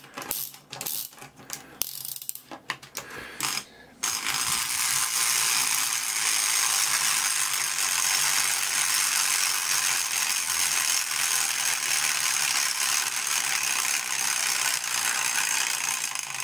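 3D-printed plastic clockwork motor: the winding key's ratchet clicks separately for about four seconds, then the spring is released and the escapement runs as a fast, steady clatter of plastic gears and escapement fork. The fork is vibrating hard enough that it tends to lift out unless held down.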